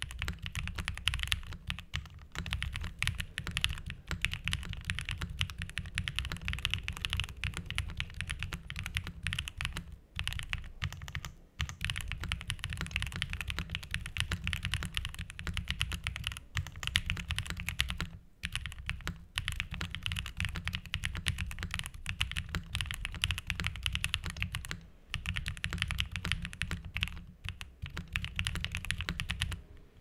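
Fast typing on a QK60 60% mechanical keyboard with a translucent case: a dense, continuous patter of keystroke clacks, broken by a few short pauses.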